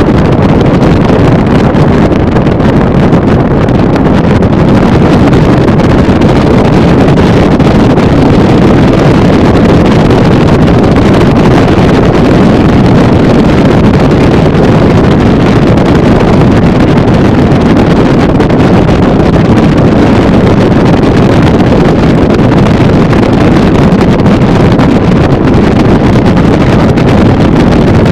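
Motorboat running fast on open water, about 40 mph: a loud, steady rush of wind on the microphone mixed with engine and hull noise, unchanging throughout.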